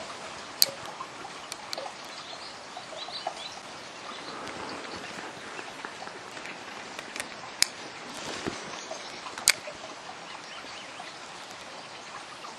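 Steady outdoor background hiss broken by a few sharp, isolated clicks, three loud ones near the start and twice in the second half, from a spinning rod and reel being worked during a retrieve.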